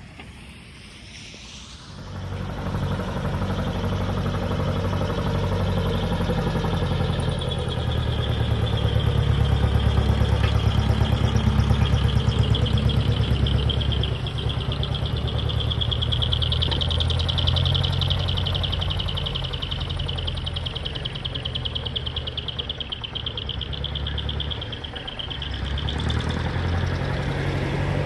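Large truck engines running with a low, steady rumble that comes in about two seconds in.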